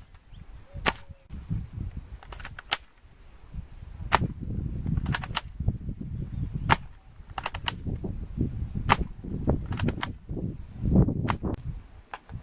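Airsoft guns firing: sharp snapping shots at irregular intervals, some in quick pairs or clusters, over a low rumbling background noise.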